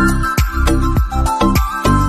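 Intro background music with a steady beat of about three strikes a second.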